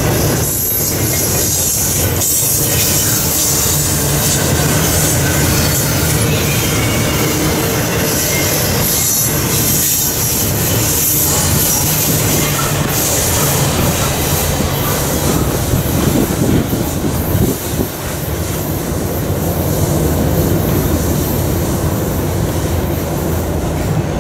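Double-stack container cars of a freight train rolling past close by: a steady rumble and clatter of steel wheels on the rails, with high-pitched wheel noise over it.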